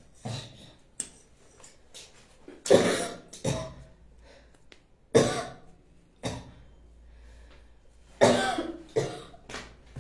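A person coughing repeatedly in short, sharp coughs, the loudest about three, five and eight seconds in.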